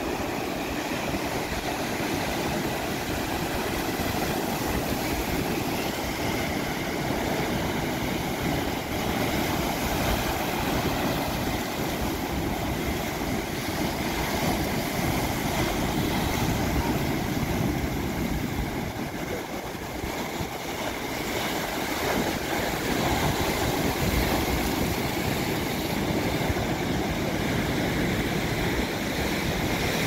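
Sea surf breaking and washing over shoreline boulders: a continuous rushing of water that eases slightly about two-thirds of the way through, then swells again.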